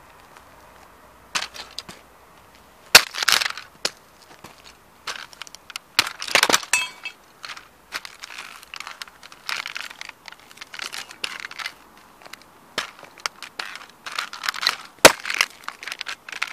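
A collectible Mercedes model car cracking and crunching under the soles of rigger work boots as they stamp on it on gravel. The crunches are irregular, with two sharp, loud snaps about three seconds in and near the end, and a dense run of crunching around the middle.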